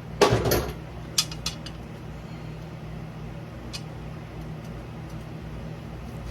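Metal engine parts and tools clanking during a small-block Chevy V8 teardown: a loud scraping clank at the start, then a few sharp metallic clicks.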